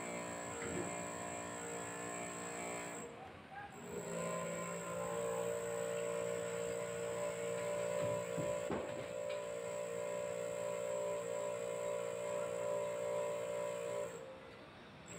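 Construction manlift's electric hoist motor running with a steady, many-toned hum. It dips and picks up again at a different pitch about three seconds in, with a couple of faint knocks in the middle, and drops away just before the end.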